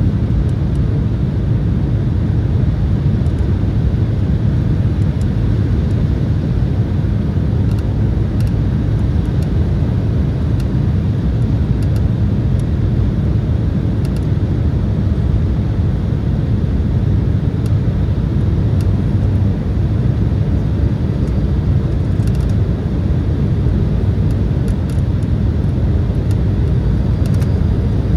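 Steady, loud rush of airflow and turbofan engine noise heard inside the cabin of an Embraer E175 airliner in flight, deepest in the low end, with a few faint ticks over it.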